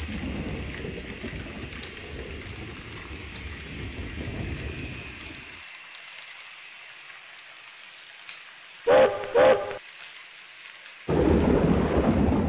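Low rumble of an HO scale model train running on the track, which drops away about halfway through. Two short, loud horn toots come close together, and the rumble starts up again near the end.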